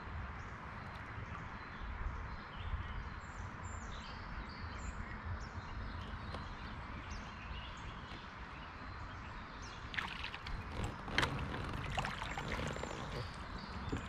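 Outdoor creek ambience from a kayak: a steady rush of moving water with a low wind rumble and faint bird chirps, then a handful of sharp clicks and knocks about ten seconds in.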